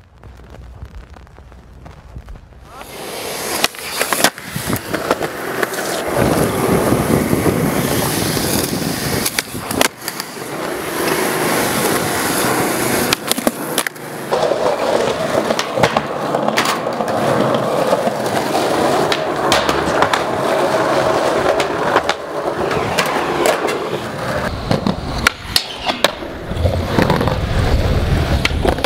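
Skateboard wheels rolling over concrete, starting about two and a half seconds in, with many sharp cracks and clacks of the board popping and landing.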